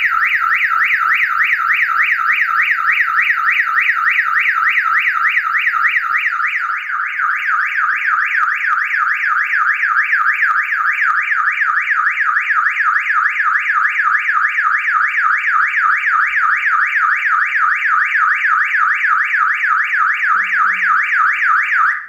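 Electronic alarm siren of a home-made GSM security alarm set off by its panic button: a loud, fast warbling wail sweeping up and down about four times a second, starting and cutting off abruptly. A towel wrapped over the siren horn partway through muffles it slightly.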